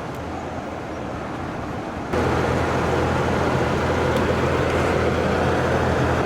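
Steady road and engine noise of a moving vehicle, which jumps louder about two seconds in and then holds steady.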